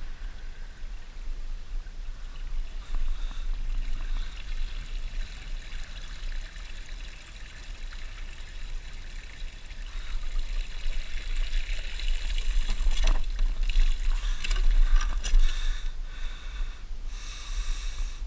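Water trickling and dribbling, with a few sharp clicks and knocks in the second half, over a steady low rumble.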